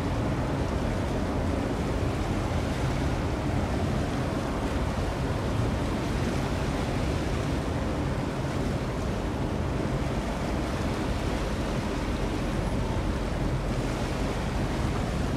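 Steady low rumble and water wash of a large container ship passing close, with wind buffeting the microphone.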